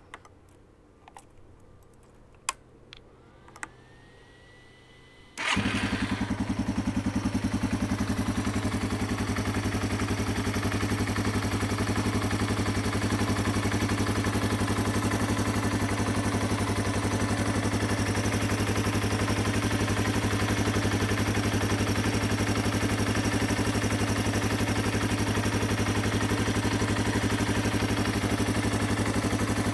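Yamaha TW200's air-cooled single-cylinder four-stroke engine: after a few faint clicks, it comes in suddenly about five seconds in and idles steadily, with an even mechanical clatter. The owner says this is normal for the air-cooled engine and that it is healthy.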